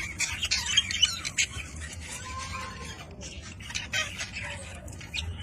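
Budgerigars chirping and chattering, a busy run of short high calls and squawks, over a low steady hum.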